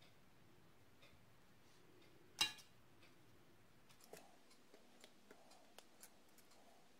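A single sharp tap about two and a half seconds in as the paintbrush is set down on an aluminium-foil-covered plate, then a few faint light ticks and crinkles as a bottle cap is pressed into paint on the foil.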